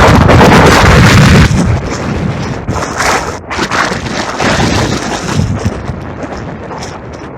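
Strong wind gusting against the microphone: a loud, rumbling buffet for the first second and a half, then easing to a lower, uneven rush.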